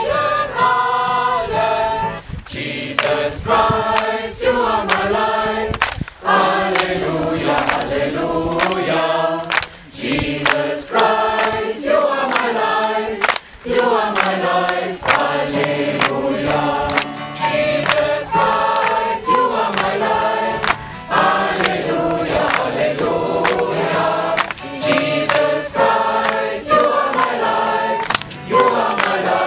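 Small mixed choir singing a hymn, accompanied by strummed acoustic guitar.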